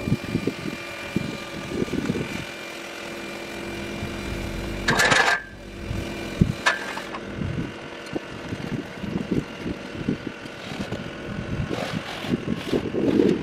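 An engine runs steadily, with a short loud burst of noise about five seconds in and a sharp knock a little over a second later.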